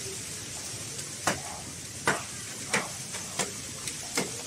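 A machete chopping into the soft, fibrous trunk of a banana plant: five sharp hacks, a little under a second apart, over a steady high hiss.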